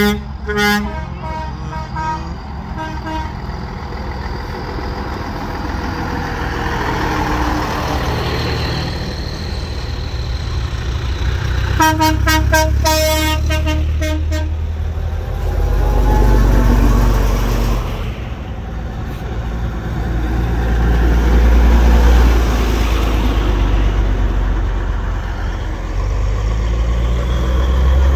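Old vehicles driving past in procession, their engines a low rumble that swells as each one goes by. A horn gives a series of short toots at the start, and one horn sounds a longer blast of about two and a half seconds around halfway through.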